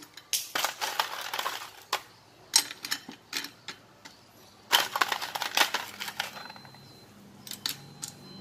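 Ice cubes clinking and clattering as they are dropped by hand into a Sea to Summit 360° 0.75 L stainless steel insulated bottle, in several short bursts of rattles and knocks.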